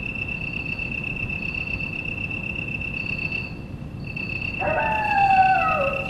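Night-time insect chirring, steady and high, with a short break about midway. A long animal howl with a falling pitch starts a little over four and a half seconds in.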